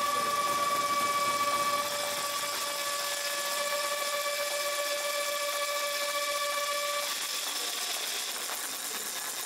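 A horn sounding one long steady note to mark a goal, cutting off about seven seconds in, over the constant hiss of the rink.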